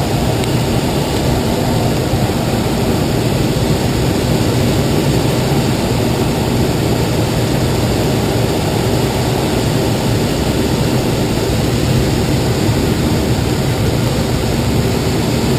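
Steady rush of air around a glider's cockpit and canopy on aerotow, with a low drone underneath that does not change.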